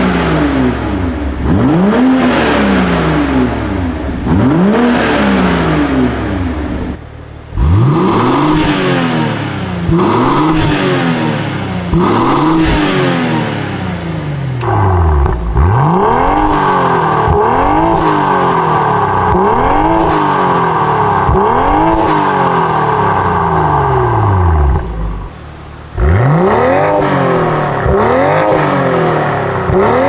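BMW M340i's B58 turbocharged inline-six blipped from idle again and again, each rev rising and falling, about every two seconds. The first revs come through the stock exhaust, the later ones through a Fi Exhaust valvetronic catback with its valves open. A steady higher tone runs under the revs for about ten seconds in the second half.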